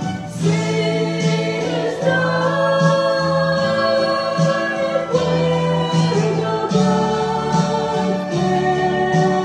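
A woman singing a gospel song into a microphone, holding long notes over instrumental accompaniment.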